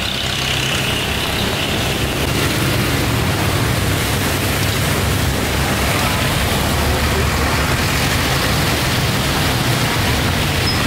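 Steady rumble and hiss of road traffic passing close by.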